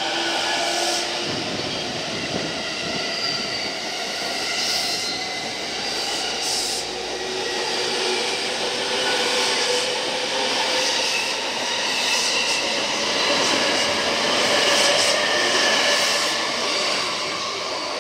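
E217-series electric train pulling out and picking up speed: several whining motor tones rise in pitch over steady wheel-on-rail rumble, with scattered clicks from the wheels.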